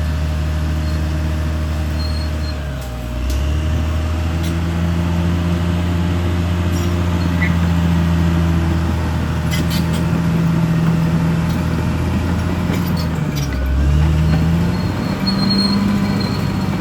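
Caterpillar D6R XL bulldozer's diesel engine running steadily, its pitch dipping twice and picking back up, with a few short sharp clanks.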